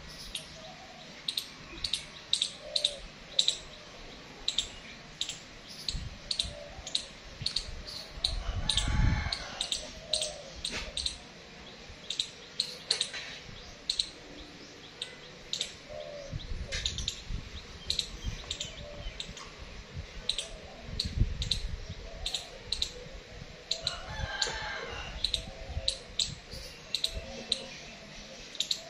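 Squirrel giving short, sharp, high-pitched chip calls, repeated irregularly about one or two a second. A rooster crows twice in the distance.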